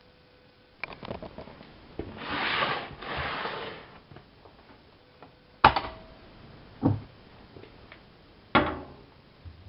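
A Miele front-loading washing machine being handled by hand: a clatter, about two seconds of sliding, rustling noise, then three sharp knocks like a drawer or door being shut.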